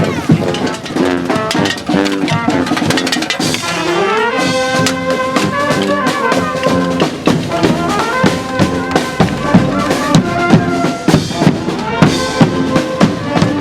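Street brass band playing: trumpets and trombones over drums, with a rising slide in the horns about four seconds in, then held chords.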